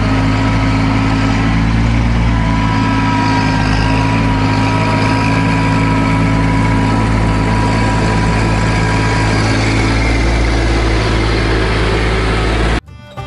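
Compact tractor engine running steadily at close range while the tractor works a gravel pile with its loader and box blade. It cuts off suddenly near the end, giving way to banjo music.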